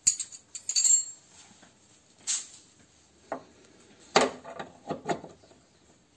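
Metal hand tools and parts clinking and knocking: a few sharp, ringing clinks in the first second, another about two seconds in, then a cluster of duller knocks around four to five seconds in.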